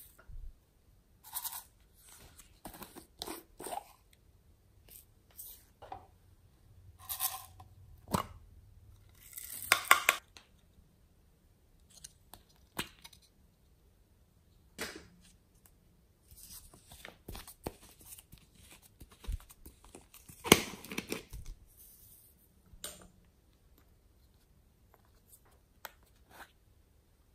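Hands handling glittery slime and small plastic pots and toys: scattered crunches, clicks and short crackles with quiet gaps between, two louder crackly bursts a third and three quarters of the way through.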